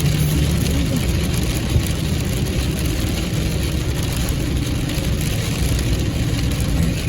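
Car engine running steadily under a constant hiss of road and rain noise.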